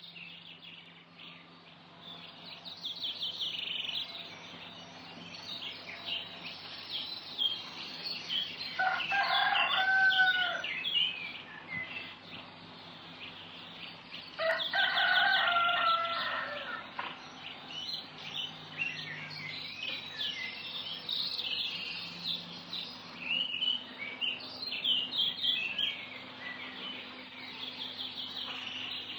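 Small birds chirping rapidly and continuously, with a rooster crowing twice, about nine and fifteen seconds in.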